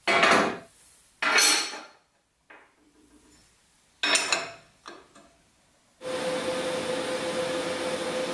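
Steel plates clank sharply against a steel welding table as they are set in place: three loud clanks with a few lighter knocks between. About six seconds in, a welding arc strikes and runs with a steady hiss and an even hum.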